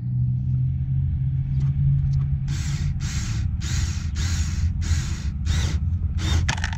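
Ryobi cordless screwdriver tightening a worm-drive hose clamp on a cold air intake. The motor whirs steadily, then gives way about two and a half seconds in to a run of regular rasping bursts, a little under two a second.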